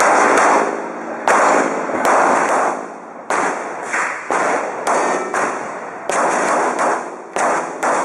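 Pistol shots, about a dozen, mostly fired in quick pairs, each trailing off in a long echo.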